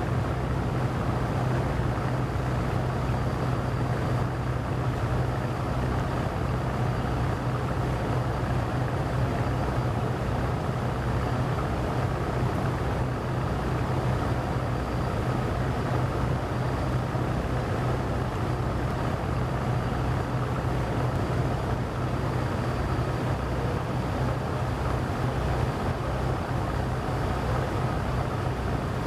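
Boat engine running steadily, a constant low drone over a steady rushing noise.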